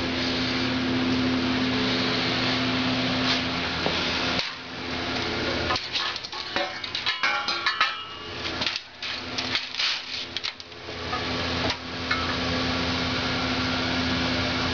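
Metal pieces clinking and clanking against each other for several seconds, with short ringing tones. A steady mechanical hum runs before and after the clanking.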